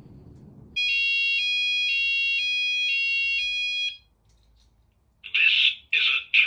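Fire alarm sounder on an addressable fire alarm system under test, sounding a loud two-tone alarm that switches pitch every half second for about three seconds, then stops. About a second later, a harsher, buzzier alarm sound starts in short pulses.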